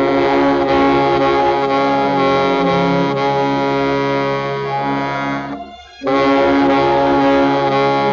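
Baritone saxophone playing a loud, growling line of held notes, with a short break for breath about two-thirds through before it starts again.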